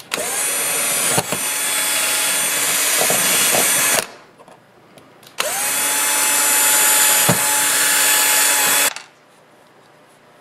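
Cordless drill running in two stretches, about four seconds and then about three and a half seconds, each with a steady motor whine, as it drills into a 3D-printed plastic extruder part.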